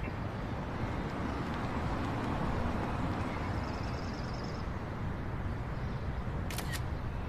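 Steady city street traffic noise, swelling about two to three seconds in, then two quick clicks of a phone camera shutter near the end.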